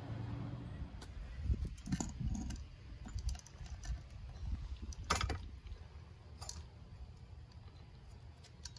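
A few sharp metallic clicks and clinks, the clearest about two and five seconds in, over a low rumble that fades after the first few seconds.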